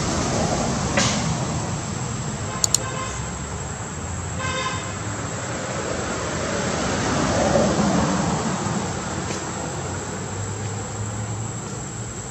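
Road traffic running in the background, with a vehicle horn tooting briefly about four and a half seconds in. A pair of sharp clicks comes shortly before the horn.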